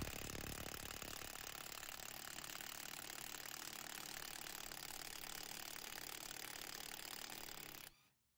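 Parkside PASSK C4 20V cordless impact wrench hammering steadily at full power on a car wheel bolt torqued to 150 Nm, trying to break it loose. It runs continuously for about eight seconds and stops suddenly near the end.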